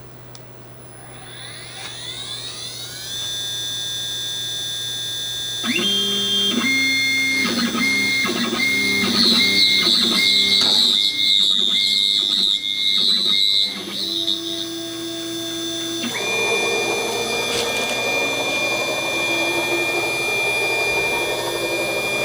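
CNC router running a program: the spindle spins up with a rising whine that settles into a steady high tone. From about six seconds in, the stepper motors drive the axes through a series of short moves, heard as stepped tones that change pitch. From about sixteen seconds the motor and spindle sound becomes a steadier, noisier run.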